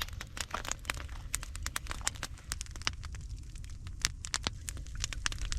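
Wood campfire crackling, with many quick irregular sharp pops and snaps over a steady low rumble.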